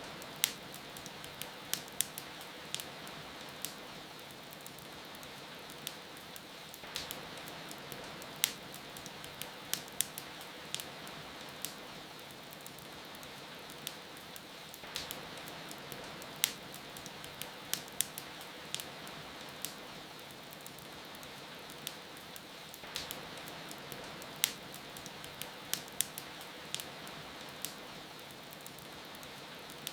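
Fireplace fire crackling, with sharp, irregular pops scattered through, over a steady hiss of falling rain.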